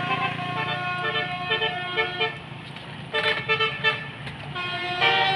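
Bus 'telolet' multi-tone musical horn playing a quick tune of short stepped notes, in runs broken by brief lulls and getting louder again near the end.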